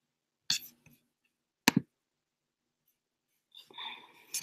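Sharp clicks from a laptop being used, a single click about half a second in and a loud double click just under two seconds in, then a short stretch of fainter clicking and rustle near the end.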